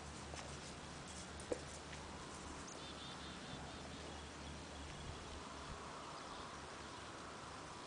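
Quiet outdoor background noise with a low steady hum, a faint bird chirping a little past halfway into the first half, and a single soft tick about one and a half seconds in.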